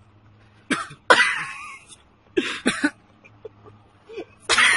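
A man coughing and clearing his throat in four harsh bursts, the second the longest, just after downing a shot of high-strength absinthe: the spirit burning his throat.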